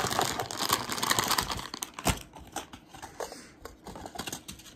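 Cake-mix packaging crinkling and rustling as it is handled to get at the sprinkles packet. The rustling is dense for the first two seconds, with a sharp snap about two seconds in, then it thins to lighter crinkles.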